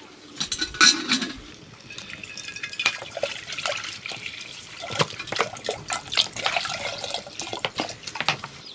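Water splashing and dripping, mixed with irregular small clicks and knocks.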